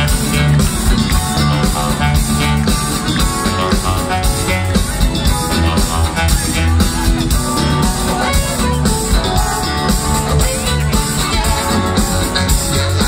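A live funk-disco band playing at full volume: electric guitars over a strong bass line and a drum kit keeping a steady beat.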